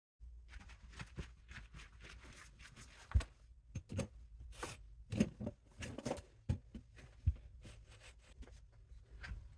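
Hands-on work sounds: irregular light knocks and clicks with rustling, over a steady low hum. The sharpest knocks fall about three seconds in and again near five, six and seven seconds in.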